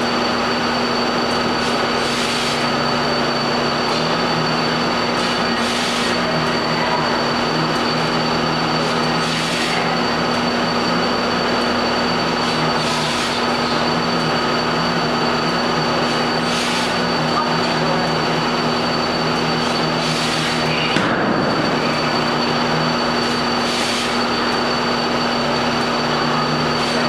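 Steady mechanical drone with a constant hum, and a hiss that swells about every three and a half seconds.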